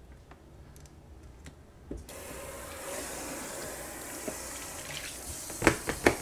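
Kitchen tap turned on about two seconds in, water running and splashing over a plastic cutting board being rinsed in the sink. A few sharp knocks near the end.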